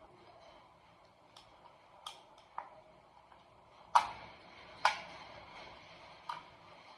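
Handheld fetal doppler's speaker giving a faint hiss broken by about six sharp, irregularly spaced clicks, the loudest two about four and five seconds in. No steady fast heartbeat rhythm comes through.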